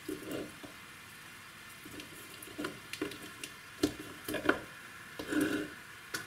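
Large chunks of bark being handled and laid into the bottom of a thin plastic orchid pot as drainage: scattered knocks and scrapes of bark against the plastic, with two sharp taps a little before and after four seconds in.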